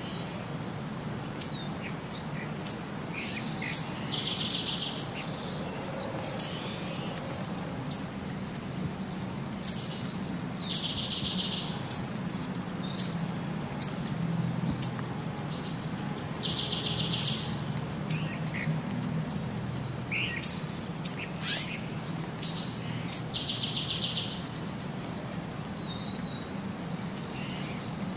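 Small birds chirping: many short high chirps, with a fast trill of about a second that comes back every six or seven seconds, over a low steady hum. The evenly repeating pattern marks a looped bird-song ambience track.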